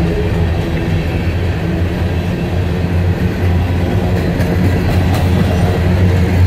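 CSX freight train of covered hopper cars rolling past at trackside: a steady, loud rumble of steel wheels on rail, with a few light clicks about four to five seconds in.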